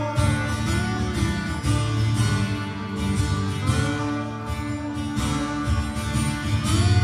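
Live acoustic guitar strumming in an instrumental passage without singing, with a second instrument holding long, steady notes underneath.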